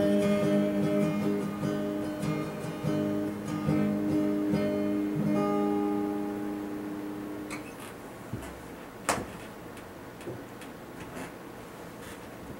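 Acoustic guitar playing the last strums and picked notes of a song, the final chord ringing out and fading away by about seven seconds in. Then a few light clicks and knocks, the sharpest about nine seconds in.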